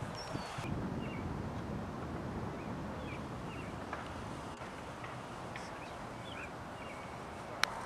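Birds chirping in short calls, several times, over a steady low rumble, with a single sharp click near the end.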